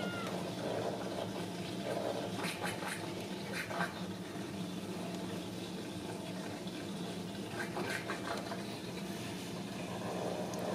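Newborn Ragdoll kittens nursing, with soft wet suckling and smacking sounds that come and go, over a steady low hum.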